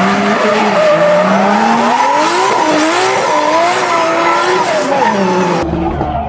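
Drift car engine revving hard, its pitch rising and falling with the throttle, over tyre squeal and skidding as the car slides sideways. Near the end this cuts to a steady low engine hum heard from inside a car's cabin.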